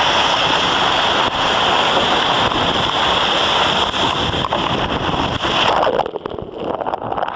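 Seawater rushing and spraying across the deck of an ocean racing yacht in heavy weather, with wind buffeting the microphone. About six seconds in the sound turns muffled and uneven as water washes over the camera.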